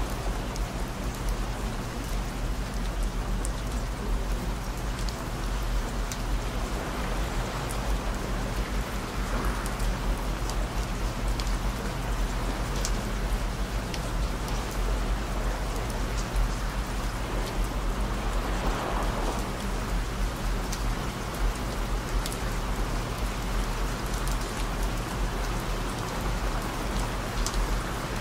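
Steady rain falling, an even hiss with scattered drop ticks, layered over low, steady sine tones around 55, 117 and 221 Hz.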